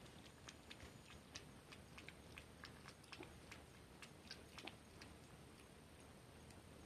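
Cat lapping water from a plate: faint, quick, irregular clicks of the tongue, about two or three a second, thinning out over the last couple of seconds.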